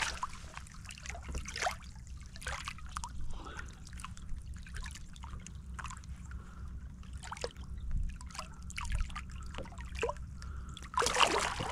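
Water trickling and dripping in small, irregular splashes over a steady low rumble, growing louder shortly before the end.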